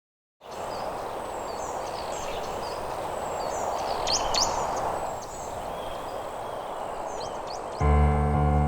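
Small birds chirping in short, scattered calls over a steady outdoor rustle. Near the end, music comes in with deep, sustained low notes.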